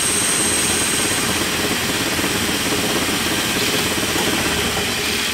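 Hardinge lathe running steadily, its spindle and drive giving an even machine hum while the cross-slide cutter takes a cut on a turned part. A thin high whine sounds for about the first second.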